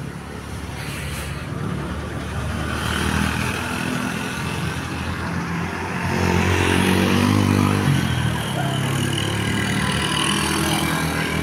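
Road vehicle driving past with its engine running, getting louder about six seconds in.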